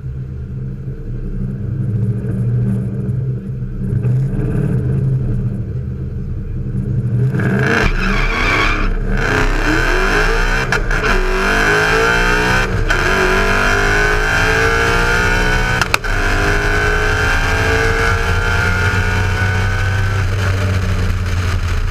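Supercharged Ford Mustang GT's 5.0 L Coyote V8 with a Vortech centrifugal supercharger, running at low revs at the starting line for about eight seconds, then launching at full throttle on a quarter-mile drag pass. The engine note climbs through the gears with a short break at each shift, several times, over a supercharger whine that rises with speed.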